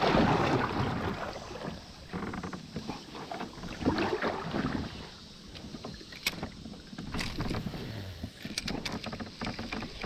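Irregular rustling, light knocks and clicks of fishing gear being handled aboard a kayak while a tangled line is sorted out.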